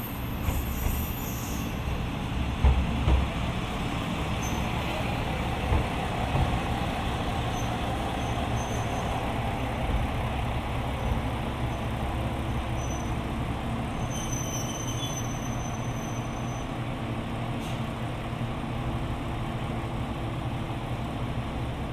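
Matsuura Railway MR-600 series diesel railcar running in slowly and coming to a stop: a steady low engine hum and wheels on rail, with a few loud knocks about three seconds in. A thin high squeal, likely the brakes, comes in about two-thirds of the way through and lasts a couple of seconds.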